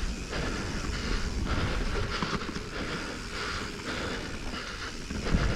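Mountain bike rolling fast down rocky dirt singletrack: steady tyre rumble with the chain and frame rattling and clicking over rough ground, and a sharp knock from a hit near the end.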